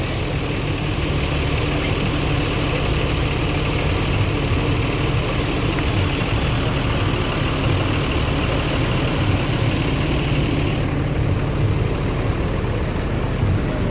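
Large tour bus's engine idling steadily with a deep rumble. A higher hiss over it drops away about eleven seconds in.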